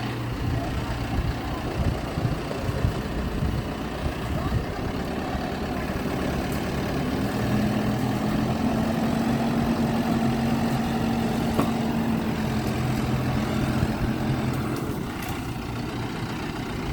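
Heavy equipment engine running steadily. About seven seconds in it climbs to a higher, steadier pitch as it works harder, then eases back near fourteen seconds.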